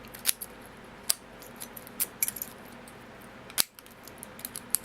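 American Lock Series 1100 padlock being handled after reassembly: a string of sharp metallic clicks and light clinks from the lock body, shackle and key. The loudest click comes about three and a half seconds in.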